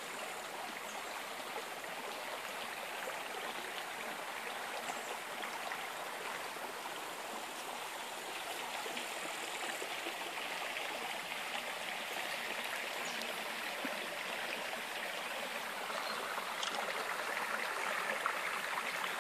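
Stream running with a steady rushing, growing slightly louder near the end.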